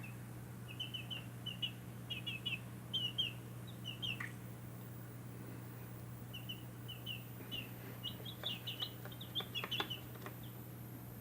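Baby chicks peeping: quick, short, high chirps in two busy bouts with a pause of about two seconds between them, over a steady low hum.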